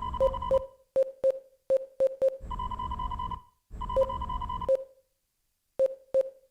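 Science-fiction starship computer alert sound effect: three steady electronic tones about a second long each, with short sharp electronic pips between them.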